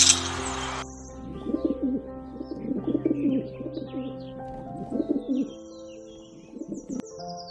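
Bird calls over background music: four low, warbling calls about a second or two apart, with scattered high chirps in between.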